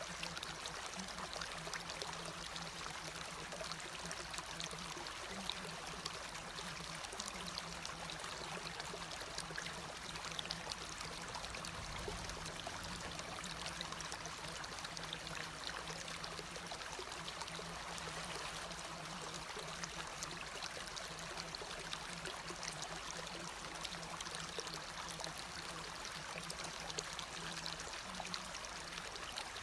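Steady rain falling, an even dense patter of drops, with a faint low hum underneath that fades in and out.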